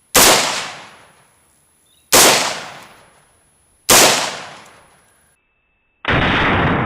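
Three rifle shots from an AR-15 in 5.56 fitted with a 'shark gill' muzzle brake, about two seconds apart, each echoing away. About six seconds in, a steady rushing noise starts abruptly.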